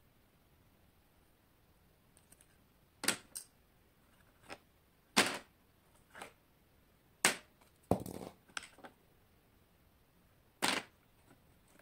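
Hard plastic bottle caps clacking as they are handled, knocked against each other and set down on a plastic Lego baseplate: a string of about eight sharp knocks at uneven intervals, with a short rattle of smaller clicks just after the middle.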